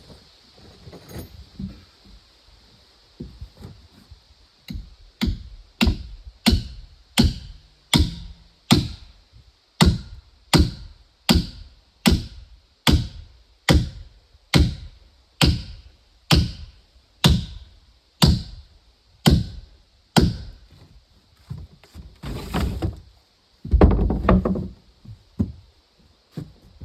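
Rhythmic chopping blows on wood, about one and a half a second, starting faintly and then going on steadily for some fifteen seconds. Near the end there is a louder, longer crash.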